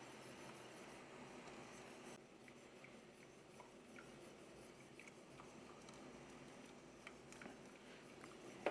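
Faint stirring of a creamy sauce with a wire whisk in a stainless steel pot, with a few soft ticks of the whisk against the pot and one sharper tap near the end.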